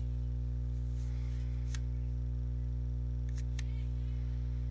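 Steady low electrical hum, with three sharp clicks of cell phone keys being pressed: one about a second and a half in, then two close together a little past three seconds.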